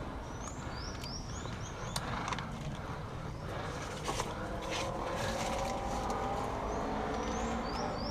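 A songbird chirping in quick runs of short high notes that rise and fall, one run near the start and another near the end, over a steady low outdoor rumble and a few sharp clicks.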